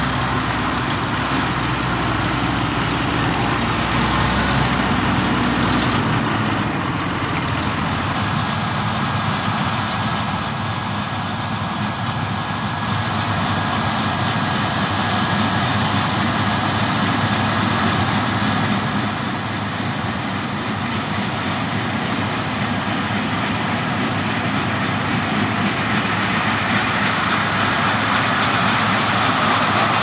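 Claas Lexion 770TT TerraTrac combine harvester working, its engine and threshing gear making a steady, dense mechanical noise that grows louder toward the end as the machine comes closer. A deep low rumble underneath drops away about six seconds in.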